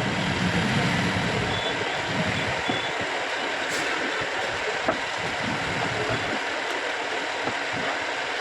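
Electric water-pump motor running with a steady, rough mechanical noise, with a single sharp click about five seconds in.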